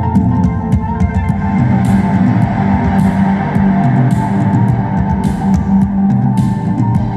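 Live electronic music from synthesizers and drums: sustained low synth notes under a steady beat, with sharp cymbal-like hits about once a second.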